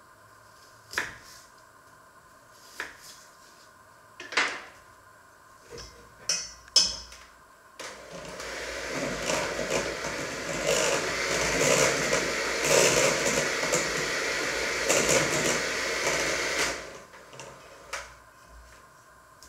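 A few scattered knocks, then a handheld electric mixer runs in a stainless steel bowl for about nine seconds, starting about eight seconds in and stopping abruptly.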